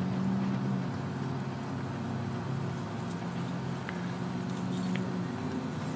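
Steady hum of road traffic, with low engine drones of passing vehicles swelling and fading.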